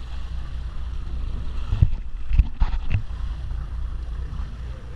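A large hooked tuna thrashing at the surface right beside the boat's hull: a cluster of sharp splashes and thumps about two seconds in, over a steady low rumble from the boat.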